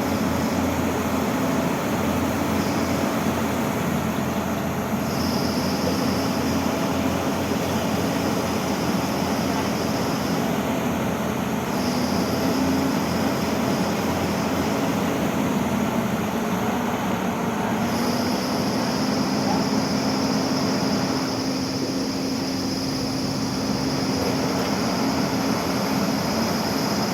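Excavator's diesel engine and hydraulics running steadily under load, with a high thin whine that cuts out and comes back several times.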